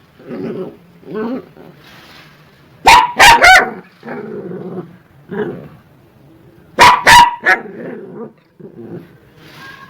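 Angry dogs barking aggressively. Loud, sharp barks come three in quick succession about three seconds in and two more about seven seconds in, with lower, quieter growling and grumbling between them.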